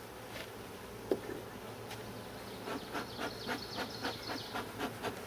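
Honey bees buzzing in a steady hum around an open hive. A sharp knock comes about a second in, and a run of quick scrapes, about three a second, follows through the second half.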